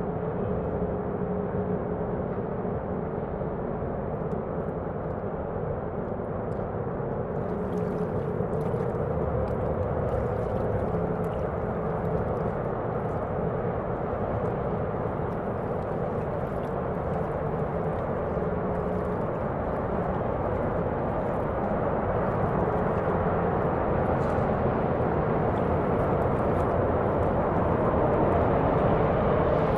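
Steady rumble of heavy road traffic that grows slightly louder, with faint crackling from about seven seconds in.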